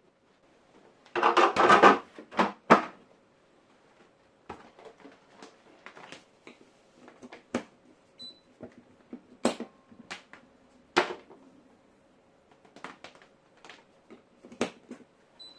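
Irregular clicks, knocks and rattles of dehumidifier parts being handled and fitted, with a dense burst of clatter about a second in and scattered sharp ticks after it.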